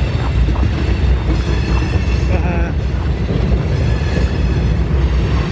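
Freight train rolling past: a steady, loud low rumble of wheels on rails, with faint high squeals above it.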